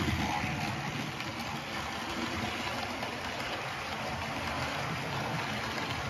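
Model railway steam locomotive 75006 and its coaches running along the track, making a steady mechanical running noise.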